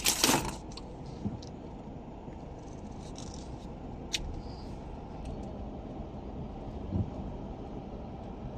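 Car driving slowly over a rough gravel road, heard from inside the cabin: a steady low rumble of tyres and engine. A brief loud crackling rattle comes at the start, and a single sharp click about four seconds in.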